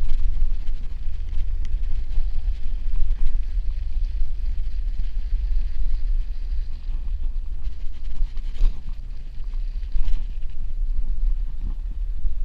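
Steady low wind noise buffeting the microphone of a camera worn by a cyclist riding over packed snow, with two brief knocks about two-thirds of the way through.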